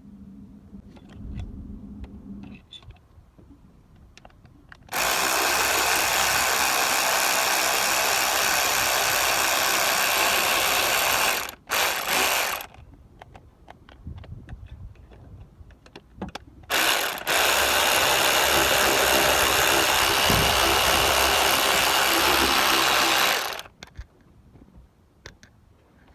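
Handheld power tool, such as a cordless drill or power ratchet, running in two long bursts of about six seconds each with a short burst between them, amid quieter clicks of hand tools.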